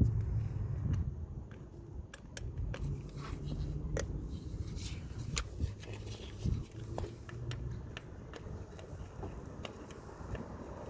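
Irregular light clicks and scrapes of hand tools working on an engine bay, over a steady low rumble.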